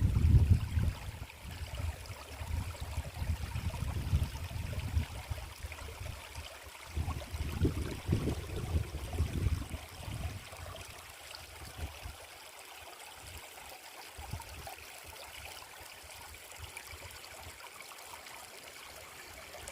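Steady faint rushing of a forest stream. Over it, an irregular low rumbling for the first ten seconds or so, which then fades, leaving the water sound alone.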